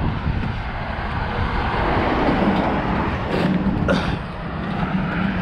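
Road traffic passing on the highway bridge alongside, getting louder about two seconds in as a vehicle's steady engine drone comes through.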